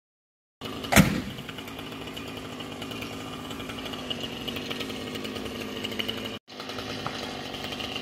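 Heavy thump about a second in, as a cut log lands, then a chainsaw engine running steadily, with a brief cut-out about six seconds in.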